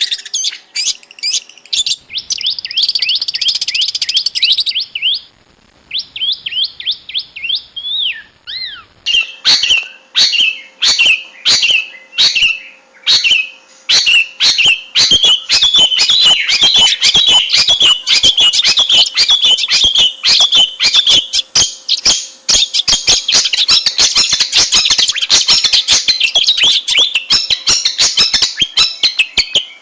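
Long-tailed shrike (cendet) singing a fast, varied run of chattering and sweeping whistled notes. The song thins to scattered notes around the middle of the first ten seconds, then runs on dense and unbroken.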